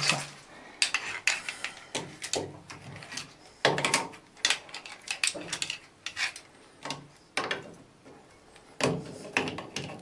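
Adjustable wrench working a threaded fitting on a chrome bathtub mixer tap: irregular metal clicks, clinks and scraping as the jaws grip and turn the nut.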